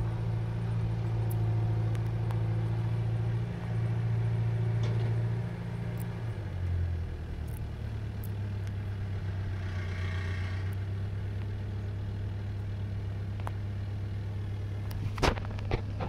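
A motor vehicle's engine running steadily as a low hum, its pitch dropping and settling lower about six seconds in. A few sharp clicks come near the end.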